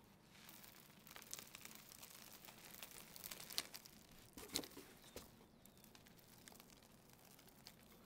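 Faint rustling and crinkling as dust and lint are shaken out of a Sanitaire upright vacuum's red cloth bag into a cardboard box, with a few soft knocks three and a half to four and a half seconds in. It dies down after about five seconds.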